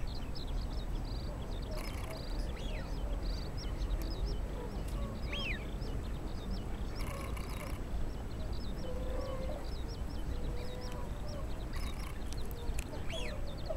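Domestic mallard-type ducks quacking now and then, a few short harsh calls, over a steady background of many small high chirps from other birds.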